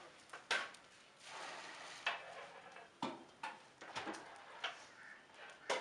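Irregular clanks and knocks of metal cooking vessels and utensils, about seven sharp hits spread unevenly, the loudest a little after half a second in and again near the end, over a low background hiss.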